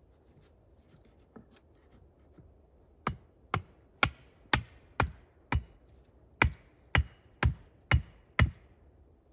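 Repeated blows of a hand tool: eleven sharp knocks at about two a second, starting about three seconds in, with a slightly longer pause after the sixth.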